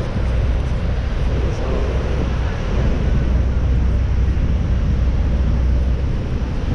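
Steady, loud roar of rushing water and the tour boat's engine on a Niagara Falls boat ride, with heavy wind rumble buffeting the microphone.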